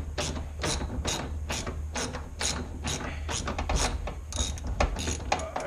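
Ratchet wrench clicking steadily, about three to four clicks a second, as a bolt is backed out.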